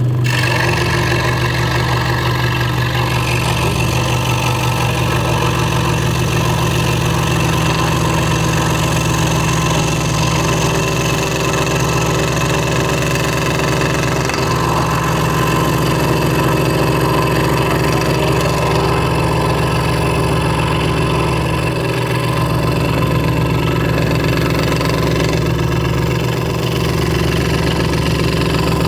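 Hegner Multicut 2S scroll saw running steadily, its blade stroking up and down as it cuts through a wooden blank, with a constant machine hum.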